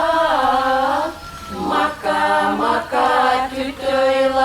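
A woman singing an Izhorian folk song unaccompanied, in slow phrases of long held notes that step in pitch.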